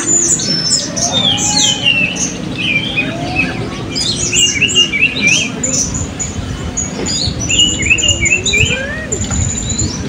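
Several caged blue-crowned hanging parrots (serindit) calling at once: a busy, overlapping stream of short, high, thin chirps and quick rising and falling notes.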